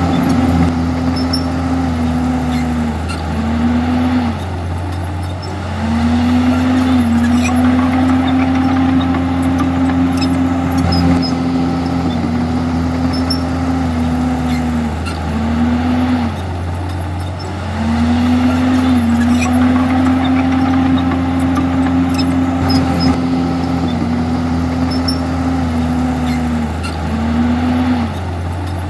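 Komatsu D51EX bulldozer's diesel engine running hard as it pushes, its pitch sagging and climbing back several times as the load comes and goes.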